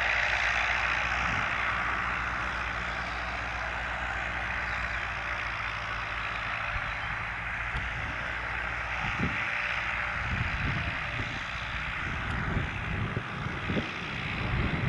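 Cessna 150's four-cylinder Continental O-200 engine running steadily at low power, propeller turning, with no change in pitch. From about nine seconds in, wind buffets the microphone with irregular low rumbles.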